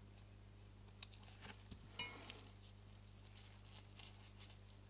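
Faint clicks and ticks of small metal parts and tools being handled while assembling a camera lens's leaf shutter, with one brighter metallic clink that rings briefly about two seconds in, over a low steady hum.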